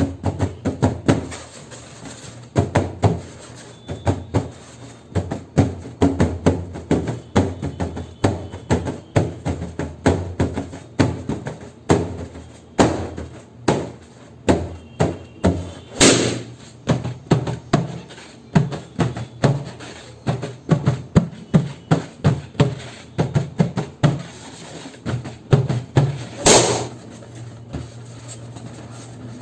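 Balloons being handled, a rapid irregular run of taps and knocks, with two loud sharp bangs, one about halfway through and one near the end, from balloons bursting.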